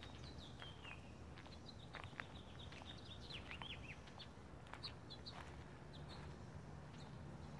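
Songbirds chirping in a run of short, quick, falling chirps, thickest in the first few seconds, with occasional faint footsteps on a gravel path.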